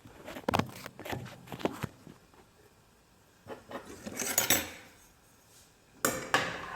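A metal utensil clinking and scraping against a dish while mixing: a quick run of knocks in the first two seconds, a scrape about midway, and a rougher scraping starting near the end.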